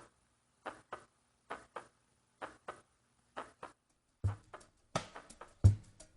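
Heartbeat sound effect: paired lub-dub thumps at a steady pulse of about one beat a second, growing louder and deeper in the last two seconds.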